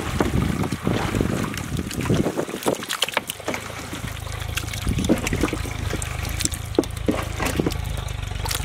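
Hands squelching and slapping raw chicken pieces in a thick curd and spice marinade in a large metal pot, a run of irregular wet squishes and clicks. A low steady rumble sits underneath from about halfway through.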